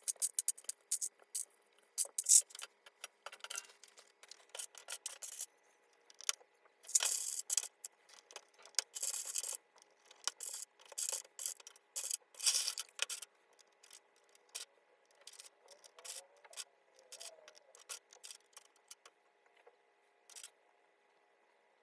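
An HHKB Professional 2 keyboard being cleaned: rubbing and scrubbing strokes across its plastic case and keycaps, mixed with irregular sharp clicks and taps. The sounds thin out after about fourteen seconds and stop shortly before the end.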